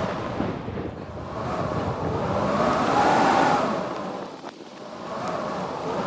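Strong blizzard wind blowing in gusts that swell and fade about every three to four seconds, a howl rising and falling in pitch with each gust. A faint click comes in the lull between gusts.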